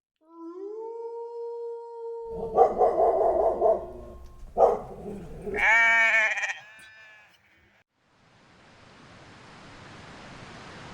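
A flock bleating: a held call, then several overlapping calls, the last and loudest with a strong quaver, all over about the first seven seconds. After a short gap, a steady rushing hiss fades in.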